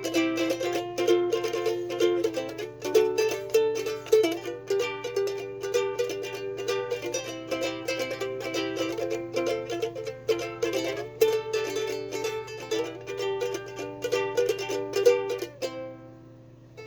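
Soprano ukulele strummed in a quick steady rhythm, working through the G, C, F and D chords with a change every few seconds. The last chord is left ringing and fades near the end.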